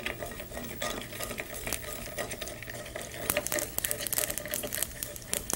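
Mustard seeds crackling and popping in hot ghee in a cast-iron skillet while a wooden spoon stirs them, the pops coming thicker in the second half. The crackle is the sign that the seeds are fully heated and ready for the next ingredient.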